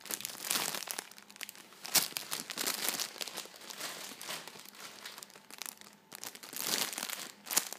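Clear plastic wrapping crinkling in irregular bursts as it is handled and pulled around a squishy toy, with a sharp crackle about two seconds in.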